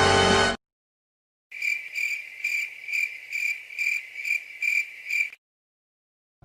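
Crickets chirping in an even rhythm, about two chirps a second for some four seconds: the stock comedy crickets effect for an awkward silence. A music clip cuts off just before it.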